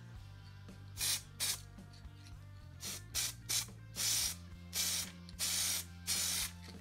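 PlastiKote aerosol spray paint hissing out of the can in about nine short bursts, the later ones longer, sprayed from too close to the foam pieces.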